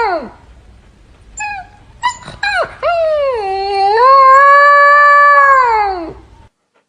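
Dog howling. A long howl slides down and fades at the start, a few short yips come about two seconds in, then a second long howl from about three seconds dips, holds steady and falls away near the end.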